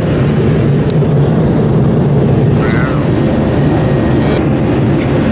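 Steady, loud low-pitched cabin noise of a jet airliner in flight: engine and airflow noise heard from inside the passenger cabin, unchanging throughout.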